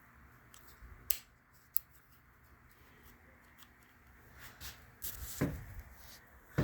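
A few sharp clicks and some handling noise on the motorcycle's controls as the horn is tried, with a knock about five seconds in; the horn stays silent because it isn't working.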